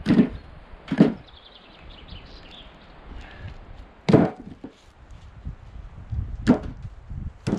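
Short sawn log cut-offs and firewood pieces tossed one at a time onto a wheelbarrow load of wood, five sharp wooden knocks at uneven intervals.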